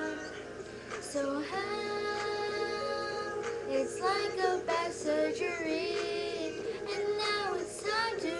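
A young girl singing in several phrases, holding long notes and sliding her pitch between them.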